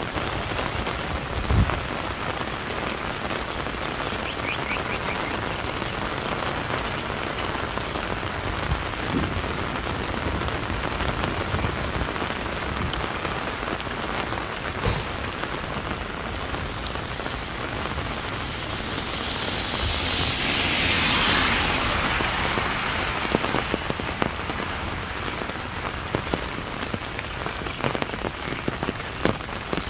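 Steady rain falling on surfaces, with a few sharp drips or knocks. About two-thirds of the way through, a louder rushing swell builds and fades over a few seconds.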